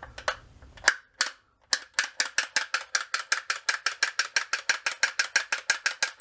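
Rolls Razor blade being stropped in its case: the handle is worked back and forth, and the blade clicks sharply at each stroke. A few clicks come about a second in, then a quick, even run of about five a second.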